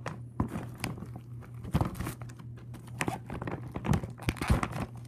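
Packaging crinkling and crackling in someone's hands, with irregular clicks and knocks, as a tightly sealed parcel is worked at and resists opening.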